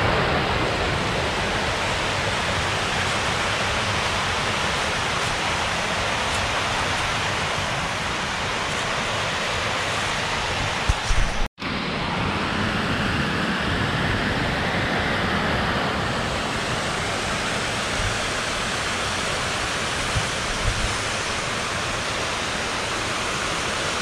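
Waterfall rushing in a steady, loud roar of falling water. The sound cuts out for a split second about halfway through, then resumes.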